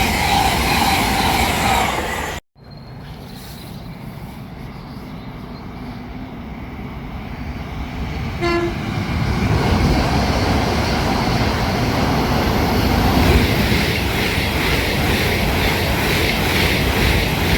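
A train passing at speed, cut off abruptly. Then another train approaches, gives one short horn toot about eight seconds in, and passes with loud, steady wheel-and-rail noise.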